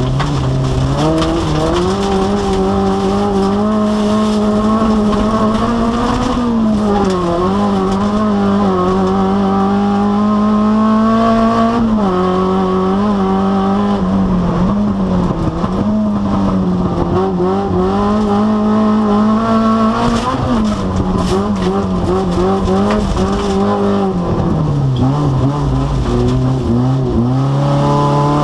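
Rallycross car's engine heard from inside its stripped cabin, running hard at high, fairly steady revs, which dip and climb back again about six times.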